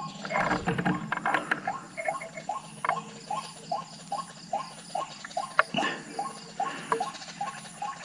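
White-breasted waterhen (ruak-ruak) calling: short notes repeated evenly at about two to three a second, with light rustling and a few sharp clicks, and one knock near six seconds in.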